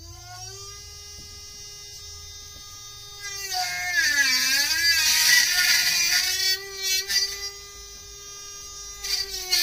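Brushless-motor-driven circular saw of a small antweight combat robot finishing its spin-up to a steady high whine, then plunging into an old robot chassis about three seconds in: the pitch sags under the load of the cut and picks up again amid loud cutting noise. It settles back to a steady whine, then bites into the chassis again near the end.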